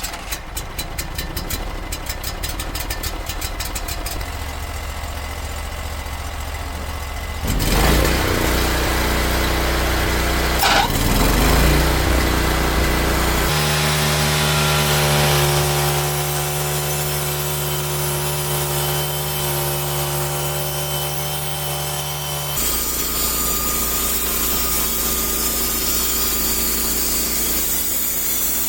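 Portable sawmill's engine running as the mill makes its first passes through a small log. It gets louder about seven seconds in and changes pitch abruptly a few times, with a steady pitched hum through the middle.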